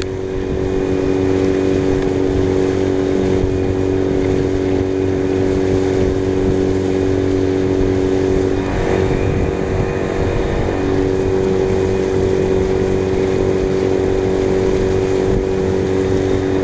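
Yamaha four-stroke outboard motor running steadily at speed, pushing an inflatable boat, over the rush of wind and water. Its steady hum wavers briefly about halfway through.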